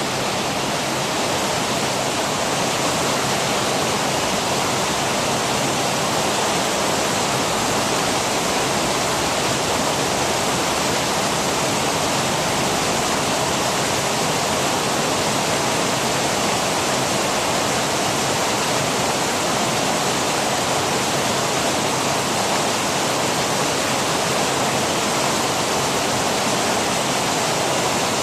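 Large waterfall fountain: water pouring and splashing into a pool in a steady, even rush.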